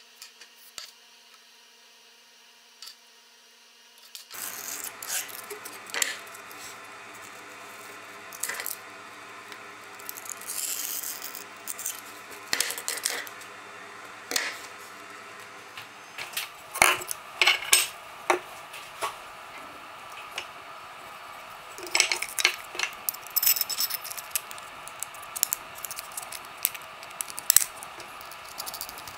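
Scattered clicks, taps and light rattles of small tools and materials being handled on a wooden workbench.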